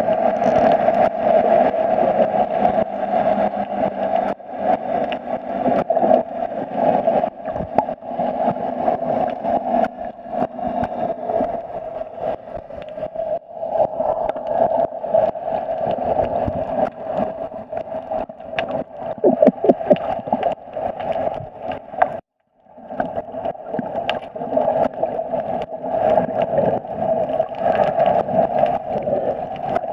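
Muffled underwater noise picked up through a camera's waterproof housing: a steady drone with dense crackling and bubbling. The sound cuts out briefly about two-thirds of the way through.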